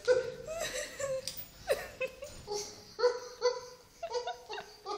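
A woman laughing in repeated short bursts.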